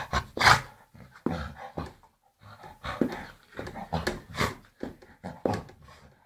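Dog sneezing over and over: a run of short, sharp bursts about every half second to a second, the loudest about half a second in.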